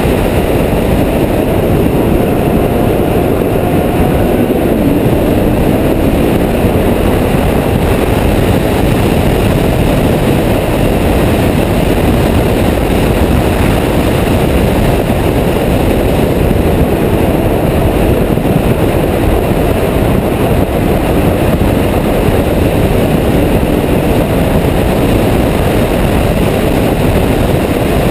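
Ferrari F12berlinetta at speed, heard from a camera mounted on the outside of the car: a loud, steady rush of wind on the microphone over the car's V12 engine, whose pitch rises in the first few seconds.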